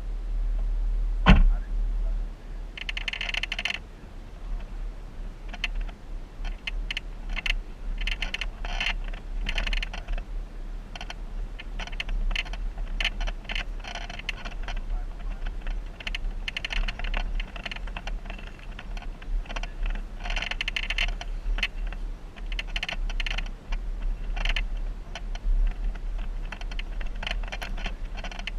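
Jeep driving a rough off-road trail: a steady deep rumble under dense, irregular clattering and rattling. There is one sharp knock about a second in.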